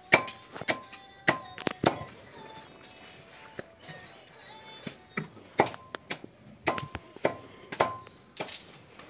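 Leafy greens being chopped with a blade on a sheet spread on the ground: sharp, irregular chops, bunched in the first two seconds and again in the second half, with a lull in between. Faint music runs underneath.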